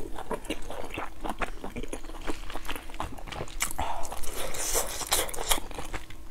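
Close-miked chewing: a person eating a sauce-coated bite of food, with an irregular run of small clicks and smacks from the mouth.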